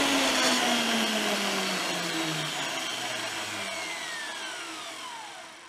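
Jancy magnetic drill's electric motor coasting down at the end of an annular-cutter cut through steel tube: a whine that falls steadily in pitch and fades, dying away near the end.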